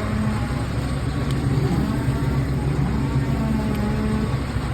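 A steady, low engine-like rumble.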